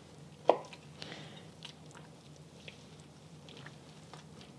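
Fingers and a chef's knife working a bone out of a poached chicken thigh on a cutting board: soft wet squishing and small clicks of meat and cartilage tearing, with one sharp knock about half a second in.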